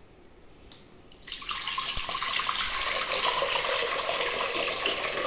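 Water poured from a jug into a 5-litre stainless steel pressure cooker, splashing steadily against the metal. The pour starts about a second in.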